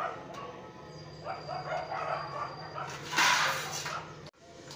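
Sheet metal and a steel square scraping across a worktable for about a second, three seconds in, the loudest sound here.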